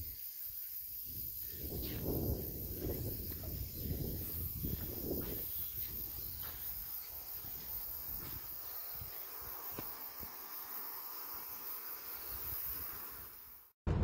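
Outdoor ambience of a steady, high insect chirring over irregular low rustling, cutting off abruptly near the end.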